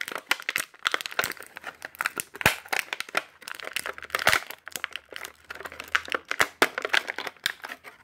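Clear plastic wrapping crinkling and crackling in dense, irregular sharp crackles as a toy figure is worked out of it by hand.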